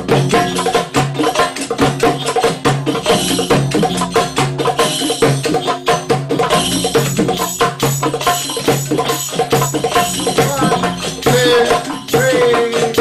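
Ensemble of hand drums, frame drums and goblet drums, playing a fast North African rhythm together in dense, rapid strokes. Voices call out over the drumming near the end.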